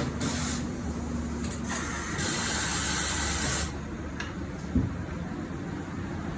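Compressed air hissing in bursts from pneumatic shop equipment as a tyre change begins, over a steady low hum, with one short knock near the end.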